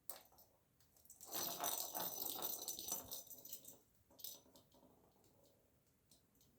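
A sharp click, then a couple of seconds of rattling and scraping thick with small clicks, followed by a few scattered clicks.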